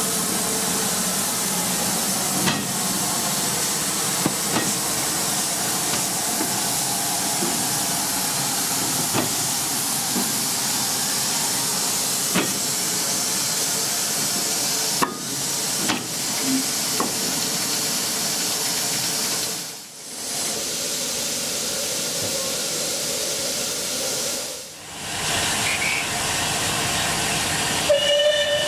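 Steam hissing steadily from the standing West Country class steam locomotive 'Taw Valley', with a few faint knocks and two brief dips in the hiss.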